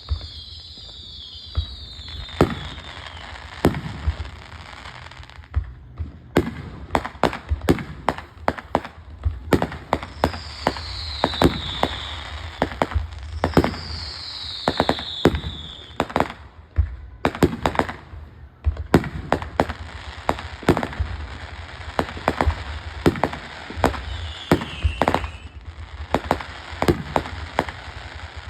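Fireworks going off: a long run of sharp bangs and crackles, thickest in the middle. Three whistles fall in pitch, two in the middle and one near the end.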